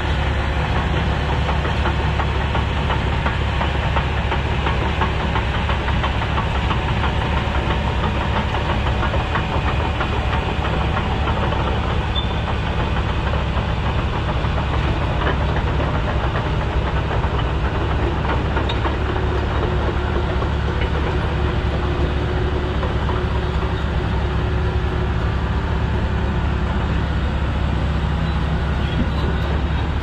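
Heavy diesel engine running steadily, a constant low drone that holds at the same level throughout.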